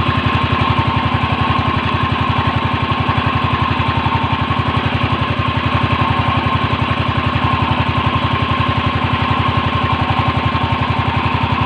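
A small fishing boat's engine running steadily, with a fast, even pulsing throb.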